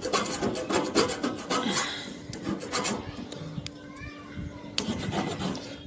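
A small metal file rasping back and forth against a thin steel refrigeration pipe to notch it so it can be snapped off. The strokes come quick and dense for the first three seconds or so, then thin out.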